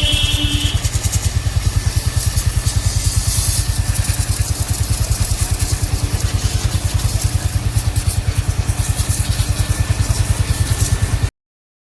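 Motorcycle engine running at a steady idle, its exhaust pulsing evenly and rapidly, then cutting off suddenly near the end.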